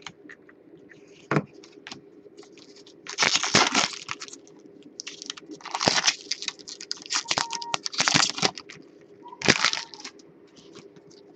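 Shiny foil wrapper of a hockey-card pack being crumpled in the hands. A few light clicks come first, then several loud bursts of crinkling.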